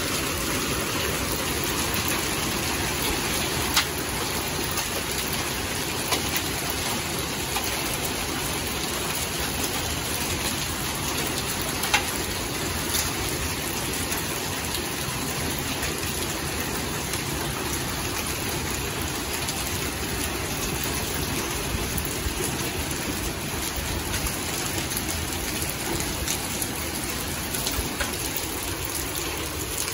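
Heavy rain mixed with hail pouring down steadily onto a paved patio and garden. A few sharper ticks of hailstones striking stand out above the downpour.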